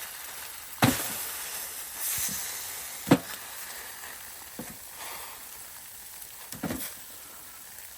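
Firewood being handled: sharp wooden cracks and knocks. There are three loud ones, about one second, three seconds and near seven seconds in, with lighter knocks between them, over a faint hiss.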